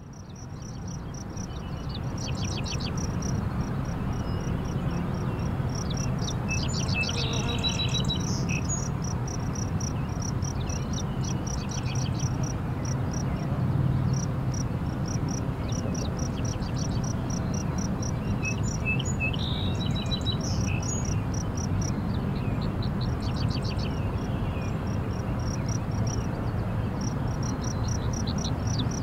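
Outdoor field ambience: an insect chirping continuously in a fast, even pulse, with bird calls several times, over a steady low hum. The sound fades in over the first couple of seconds.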